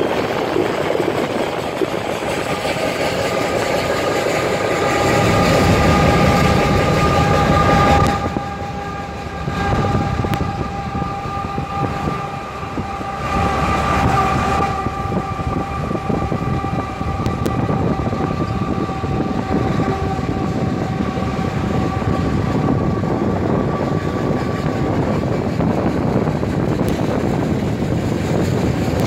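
Diesel freight train passing with its locomotive horn sounding a long, held chord over the rumble of the train. The horn fades out near the end.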